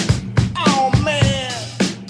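Background music with sharp drum hits and sliding, falling melody notes in the middle.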